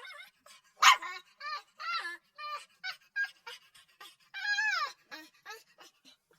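Puppy crying: a quick run of short, high-pitched whimpers and yelps. A sharp, loud yelp comes about a second in, and a longer whine falls in pitch past the middle.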